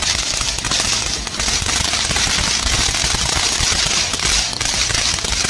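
Firecrackers bursting in a rapid, unbroken run of sharp bangs and crackles.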